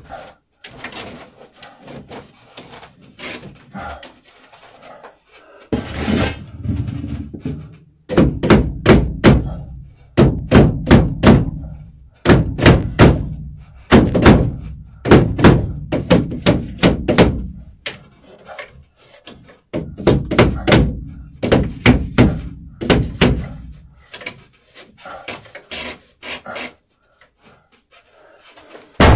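Repeated knocks on a plastic drain pipe joint as the pipe is driven together and lined up, coming in quick runs of several blows with short pauses, starting about six seconds in.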